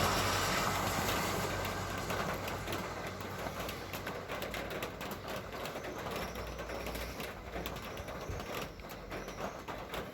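A vehicle passing on the street, its noise fading away over the first few seconds, followed by faint irregular clicking.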